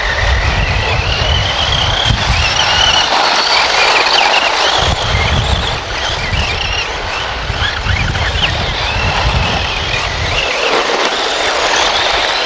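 Electric radio-controlled off-road buggies racing, their small electric motors whining high, the pitch rising and falling as they speed up and slow down. An uneven low rumble runs underneath.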